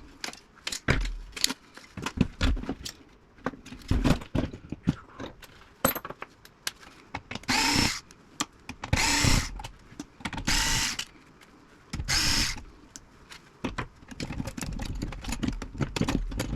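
Power drill run in four short bursts a second or so apart, with scattered clicks and knocks of small metal parts being handled during the disassembly of an old radio chassis.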